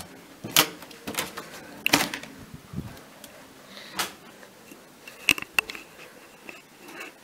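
Irregular handling clicks and knocks from a handheld camera moving through a small room: about five sharp ones, unevenly spaced, over quiet room noise.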